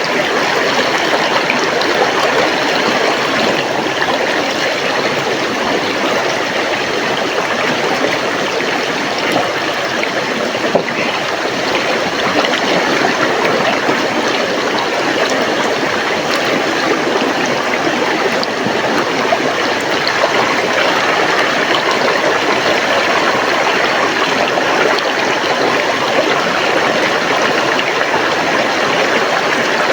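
River water flowing and rushing steadily over rocks.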